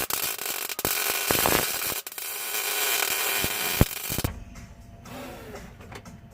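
Power screwdriver running, driving screws through the replacement floor patch into the car's sheet-steel floor pan to hold it in place, with a few sharp clicks; it stops about four seconds in.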